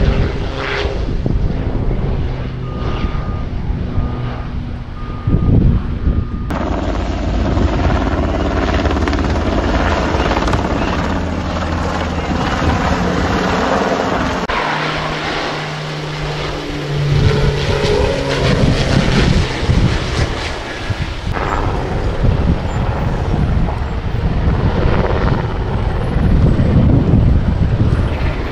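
Firefighting aircraft running in a string of edited clips that cut abruptly several times: first a propeller airtanker's engines, then a helicopter flying overhead. A vehicle's reversing beeper sounds a few seconds in.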